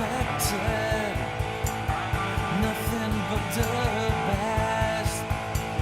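Rock music with a strummed guitar, a steady drum beat and a sung vocal line.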